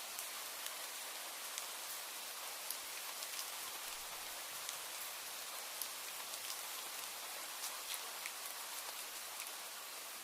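Steady rainfall, an even hiss with many scattered sharp drop ticks.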